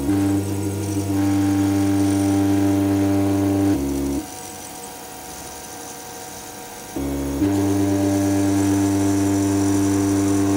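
3D printer stepper motors driving an axis in long steady moves, a steady motor whine that stops for about three seconds in the middle and then resumes. Each move opens with a brief tone at a different pitch.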